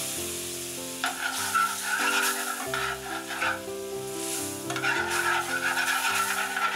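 White wine sizzling in a hot sauté pan as it is deglazed, with metal tongs stirring and scraping the pan's bottom.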